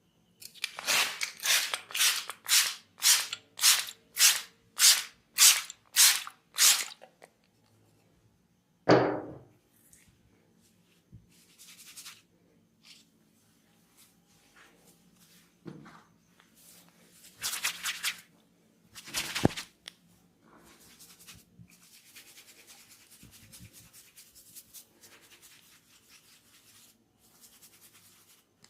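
A quick series of about eleven short swishing noises, roughly two a second, then a single swish that falls in pitch. After that come a few scattered swishes and a faint steady hiss.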